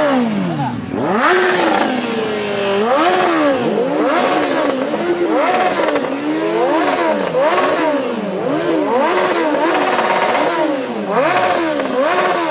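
Superbike engines revved again and again, each rev rising in pitch and falling back, roughly once a second, with some revs overlapping.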